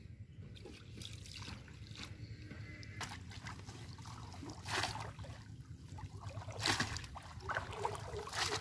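Shallow muddy water splashing and sloshing as someone wades through it and plunges a bamboo polo cone fish trap down into it, with a few louder splashes in the second half over a steady low rumble.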